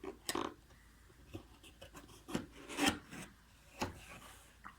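Kettle packaging being opened by hand: a few short rubbing and scraping sounds, the loudest about three seconds in.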